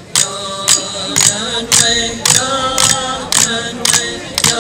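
Chanted singing over a sharp click struck about twice a second, keeping an even beat.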